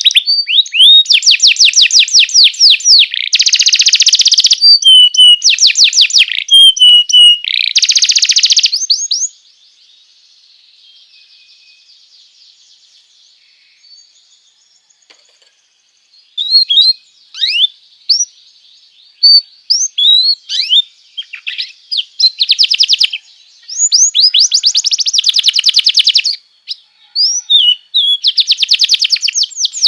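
Domestic canary singing: loud, very rapid trills and rolls for about nine seconds, then a quiet stretch with only faint notes, then sharp rising chirps that build back into fast trills near the end.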